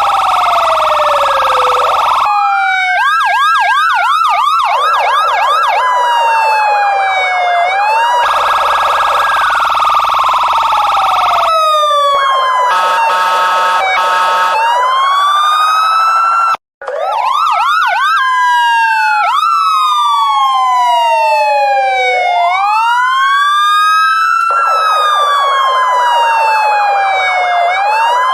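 Electronic police car sirens cycling through their modes: a slow rising-and-falling wail, a fast yelp about 3 to 5 seconds in, and stretches of a harsh steady tone. At times two sirens overlap, and the sound cuts out for an instant about 17 seconds in.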